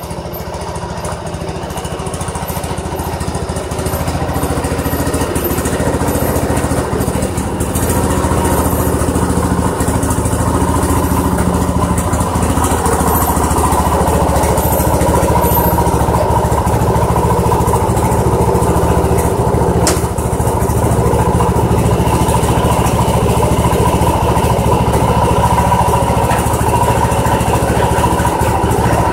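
Ranch King garden tractor's freshly swapped-in engine running steadily, growing louder over the first several seconds as the tractor drives up close, then holding an even run once stopped.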